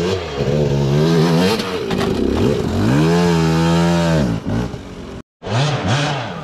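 Two-stroke KTM 250 dirt bike engine revving up and down on the throttle. About three seconds in it rises to one long high rev, holds for about a second and falls back; after a brief break near the end come two short blips.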